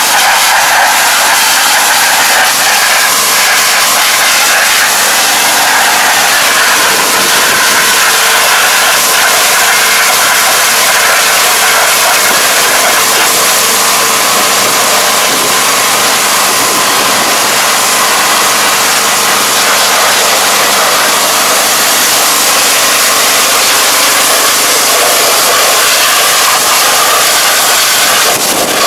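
High-pressure washer running, its water jet spraying hard against the muddy rice transplanter: a loud steady hiss over the hum of the washer's motor and pump.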